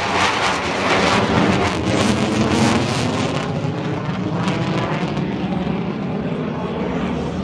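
F-15E Strike Eagle fighter jet passing with a loud, steady rush of jet engine noise, its hiss easing off over the last couple of seconds.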